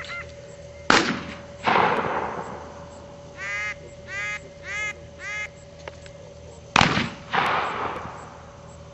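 Shotgun shots in two pairs, each a sharp crack followed within a second by a louder bang that rings away. Between the pairs a duck call is blown in about four quacks. These are hunt-test gunners calling and shooting to mark a thrown bird for the retriever.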